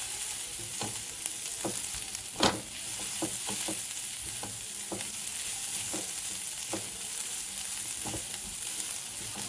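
Chopped onions and carrot sizzling in oil and butter in a pan over a high flame, with the light clicks of a stirring utensil against the pan and one sharper knock about two and a half seconds in.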